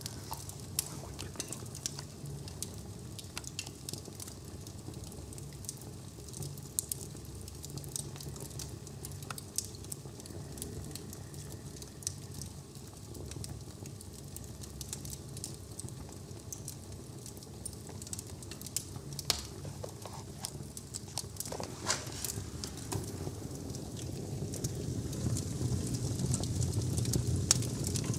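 Wood fire crackling in a newly built fireplace on its trial firing: irregular sharp pops and snaps over a low rumble that grows louder near the end.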